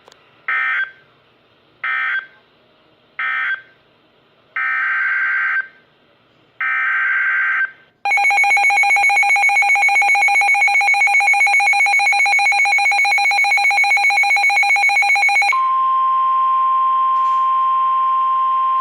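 Emergency Alert System signalling before a weather warning. It opens with a string of short screechy digital data bursts, the SAME header: three brief ones, then two longer ones. About 8 s in comes a loud steady two-tone attention signal, which switches about 15 s in to a single steady tone near 1 kHz, the NOAA Weather Radio 1050 Hz alert tone.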